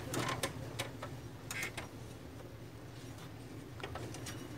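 Light plastic clicks and taps as the pickup roller of an HP LaserJet 1320 is handled and pushed onto its shaft to seat it. The clicks are scattered, mostly in the first two seconds with one more near the end, over a low steady hum.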